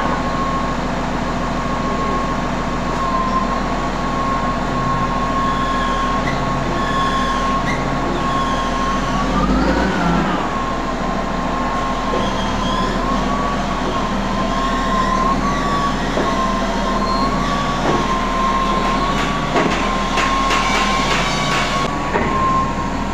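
Crane's diesel engine and hydraulic pump working, a steady whine over a low engine hum; about ten seconds in the engine revs and the whine briefly rises in pitch, then settles back.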